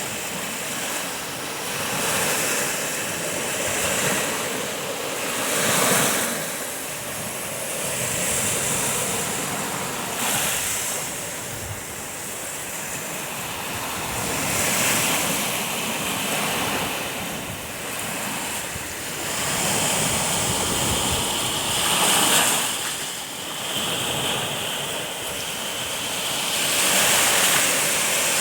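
Black Sea surf washing onto the beach, a steady hiss that swells and falls back every few seconds as the waves break and run out.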